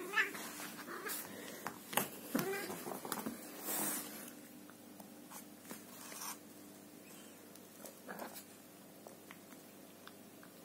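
Sphynx cat giving short meows, once right at the start and again a couple of times about two to three seconds in, between light knocks and rustling as it plays with a ribbon toy.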